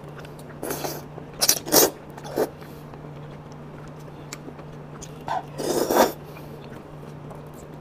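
Wet slurping and chewing of a soft, broth-soaked piece of wheat gluten close to a clip-on microphone, in short bursts: several in the first two and a half seconds and a longer one about five to six seconds in, over a steady low hum.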